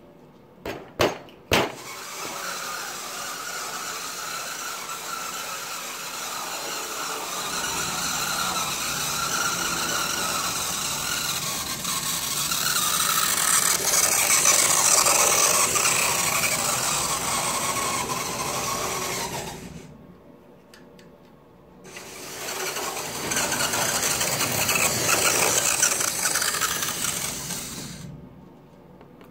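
A model train's diesel locomotive running along the track, its electric motor and wheels making a steady mechanical noise that grows louder as it passes close. The noise fades away after about twenty seconds, then comes round again and fades near the end. A few sharp clicks come about a second in, before the running starts.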